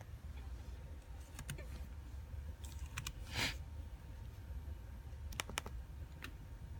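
Faint computer mouse clicks while folders are being navigated, several coming in quick pairs like double-clicks. There is a short soft hiss about three and a half seconds in, over a low steady hum.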